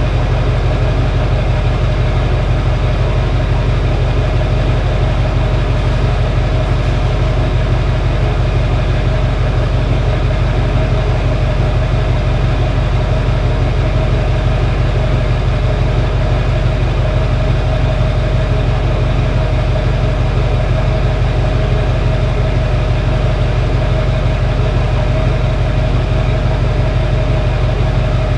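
2006 Chevy Duramax 6.6-litre turbo-diesel V8 idling steadily through a 5-inch straight-pipe exhaust, a deep, even exhaust note with a steady high tone over it from the turbo whistle.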